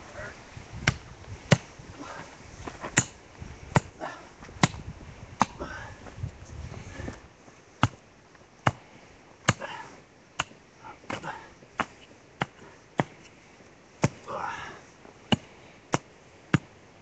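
Repeated sharp strikes of a digging tool into rocky ground while a pole hole is dug deeper, roughly one blow a second, sometimes closer.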